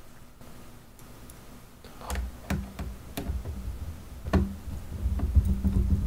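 A hand screwdriver driving a screw into an iRobot Roomba 650's plastic top housing. After about two quiet seconds come scattered sharp clicks and light knocks as the tool works the screw, with low rubbing of hands and tool on the plastic shell.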